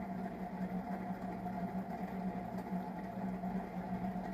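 Steady low machine hum, holding one pitch throughout with a fainter higher tone above it.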